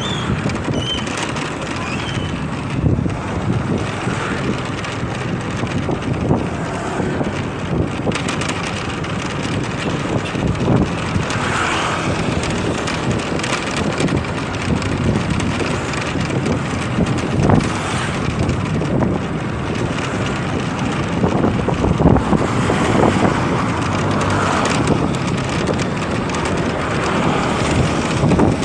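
Wind rushing over the microphone of a moving motorcycle, mixed with steady engine and road noise.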